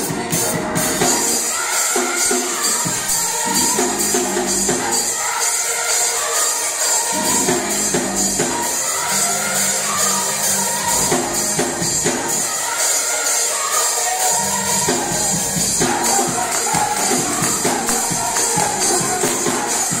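Youth and young adult gospel choir singing an upbeat song over instrumental accompaniment with a steady beat.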